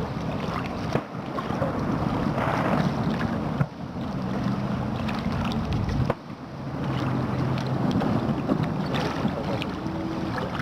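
Aerial fireworks bursting: three sharp bangs a couple of seconds apart, over a steady dense rumble.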